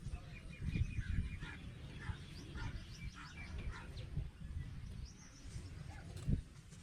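Birds chirping repeatedly over a low rumbling background noise.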